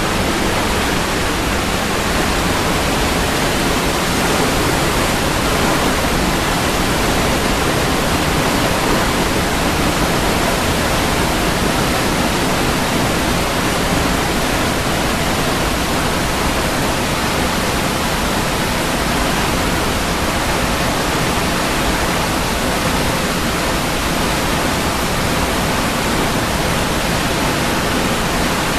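Waterfall: a steady, unbroken rush of falling water, even across low and high pitches with no distinct splashes or changes.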